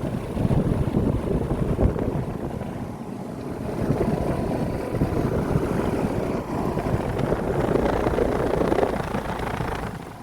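Outdoor central air-conditioner condenser units running in cooling mode: a steady fan whoosh over a low compressor hum, easing off near the end.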